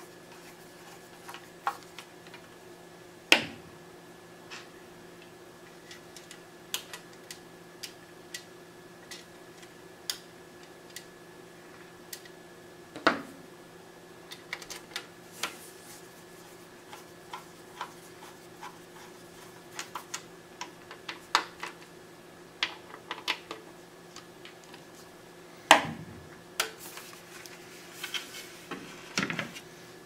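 Screwdriver turning screws into the sheet-metal underside of a Sannce DVR, fastening a 3.5-inch hard drive inside: scattered small clicks and ticks, with a few sharper metallic knocks as the case is handled.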